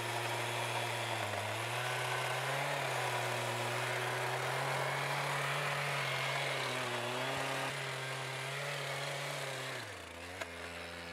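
Geo Ripper power shovel's motor running steadily as it digs a trench, its pitch sagging briefly a few times as it takes load, then winding down near the end.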